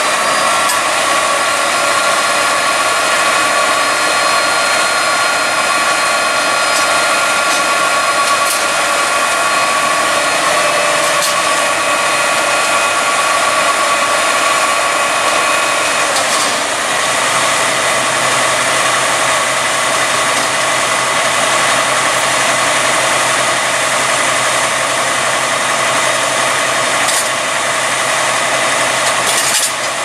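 Fire truck diesel engines idling steadily, with a steady high whine over the engine noise. About 17 seconds in the whine shifts in pitch and a lower steady hum sets in.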